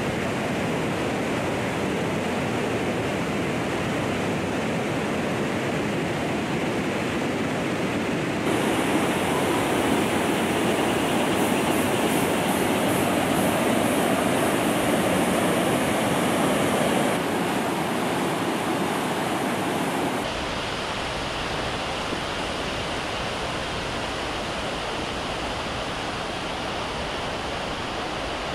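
Steady rushing of a fast whitewater river, with no other sound over it. It changes abruptly in level and tone a few times and is loudest in the middle third.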